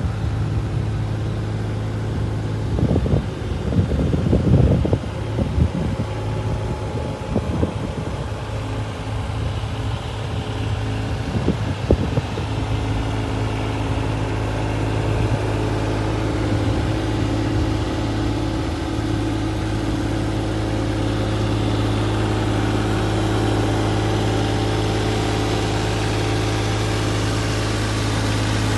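Takeuchi TB216 mini excavator's diesel engine idling steadily. A cluster of louder irregular noises comes about three to six seconds in and again near twelve seconds.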